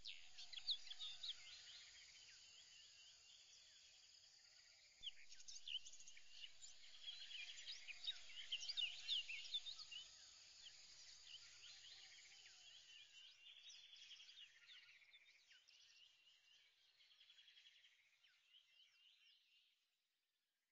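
Faint chorus of many birds chirping in quick, overlapping calls, busiest from about five to ten seconds in, then fading out and stopping just before the end.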